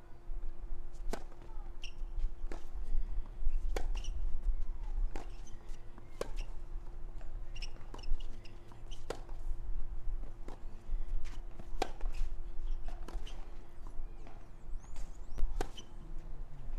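Tennis ball being struck by rackets in a rally: a dozen or so sharp hits about a second apart, over a steady low hum.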